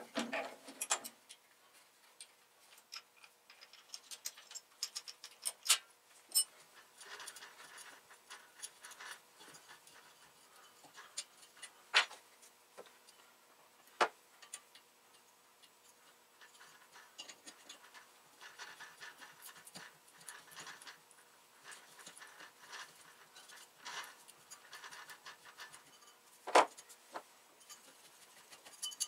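Faint, scattered clicks and ticks of hand tools working a metal tube: a tap being turned by hand in a drilled hole, then a screwdriver at the bench vise. Several sharper metal clicks stand out among them.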